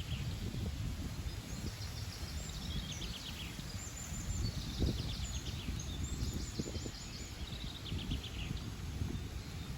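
Songbirds singing in short, rapid trills, several overlapping phrases, over a steady low rumble.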